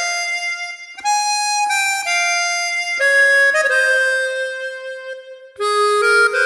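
Yamaha SHS-500 Sonogenic keytar playing a single-line melody on a reedy, wind-like voice with reverb added: held notes stepping up and down, with a short break about a second in.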